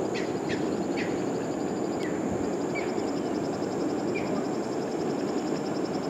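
Outdoor ambience: a steady rushing noise with a few short high chirps and, through the middle, a fast high trill.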